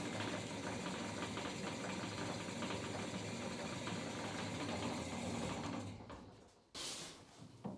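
1957 DoAll 16-inch bandsaw running in slow gear with no blade fitted, the freshly repaired gearbox and lower wheel turning with a steady mechanical run and a fine rapid ticking. It winds down about six seconds in, and a brief rustling noise follows near the end.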